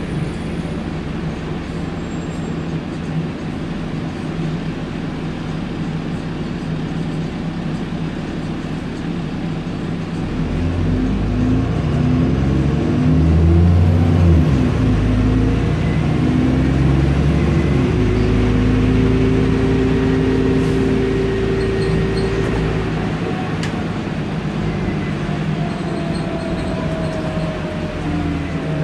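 The engine and drivetrain of an Alexander Dennis Enviro 400 double-decker bus, heard from the upper deck while the bus is moving. From about ten seconds in, the engine note rises in steps and grows louder for several seconds as the bus works through its gears. After that a higher whine slowly shifts in pitch.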